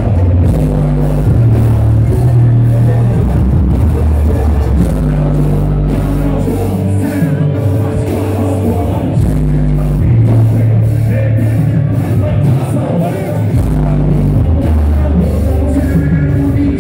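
Loud live concert music over the PA, heard from the crowd: deep held bass notes that change every second or two under a steady drum beat.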